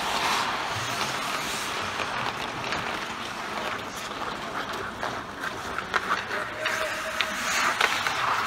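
Ice hockey play on the rink: skates scraping across the ice under a steady hiss, with sharp clacks of sticks and puck now and then and a brief shout about two-thirds of the way through.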